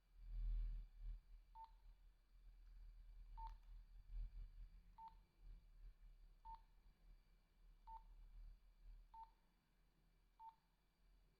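Nokia 2110i keypad key tones: seven short, identical beeps, a second or two apart, as buttons are pressed to step through the phone's menus. A low rumble underneath, loudest near the start.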